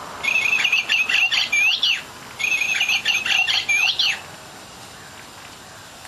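Toy singing bird cage playing a recorded chirping birdsong: the same warbling phrase twice, each nearly two seconds long, then it stops.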